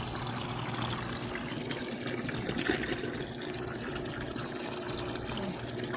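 Wash water draining out of a Costway twin-tub washing machine's drain hose, pouring and splashing steadily into a bucket as it fills.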